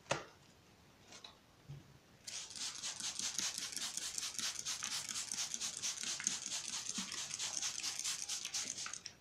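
Hand spray bottle squeezed rapidly, several hissing squirts of water mist a second, wetting toilet paper laid out for germinating seeds. The spraying starts about two seconds in and stops just before the end, after a single sharp click at the very start.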